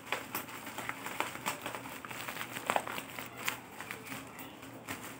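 Bubble wrap around a box crinkling and crackling as fingers squeeze and handle it, in irregular small clicks.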